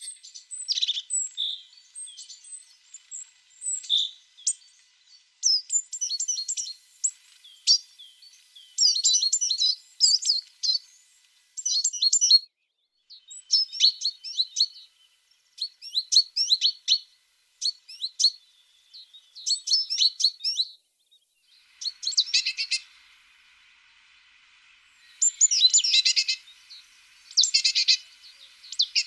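Tits singing: short phrases of quick, high notes repeated every second or two, with a few louder, denser trills near the end.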